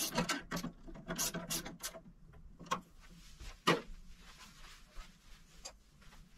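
A metal wrench working on a go-kart track rod bolt: a quick run of light clicks for the first two seconds, then a couple of louder single knocks and a few faint clicks as the tool is handled.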